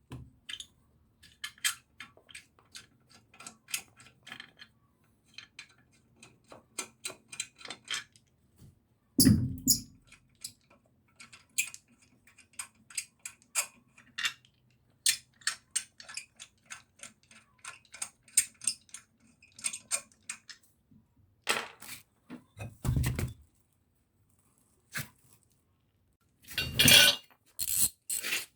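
Metal hand tools clinking and clicking against car suspension hardware during work to replace a VAZ-2114's front ball joints. There are many irregular light clicks and a few heavier metal knocks, about a third of the way in, past the middle, and near the end.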